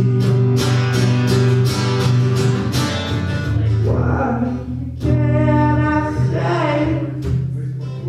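Male voice singing with a strummed acoustic guitar: even strokes for the first few seconds, then long held notes over the chords.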